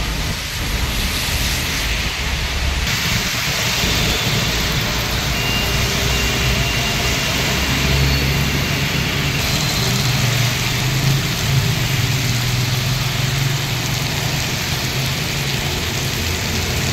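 Rain and road traffic on a wet road: cars and motorbikes passing, their tyres swishing through standing water, over a steady wash of rain. A low engine hum stands out for a few seconds in the middle.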